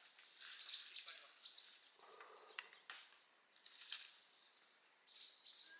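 A songbird singing, a run of three quick high arched notes about half a second in and the same phrase again near the end. A few sharp clicks and short rustles fall between the phrases.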